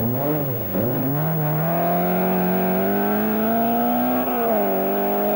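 Rally car's engine revving hard: the revs rise and fall twice, then are held high and climb steadily as the car accelerates away, with a brief dip about four seconds in.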